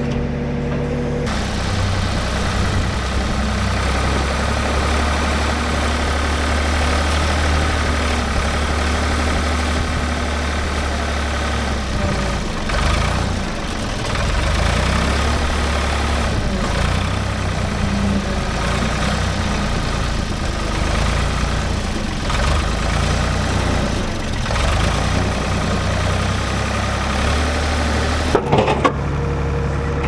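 Old Ford backhoe's engine running steadily under load, stepping up in speed about a second in as the rear digging bucket and front loader work. A few sharp knocks near the end.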